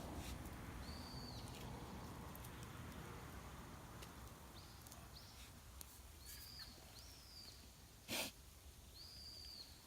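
Small birds calling in short, high, arched notes, about six times, over a faint low outdoor rumble; a single sharp snap, like wood popping in the fire, comes near the end.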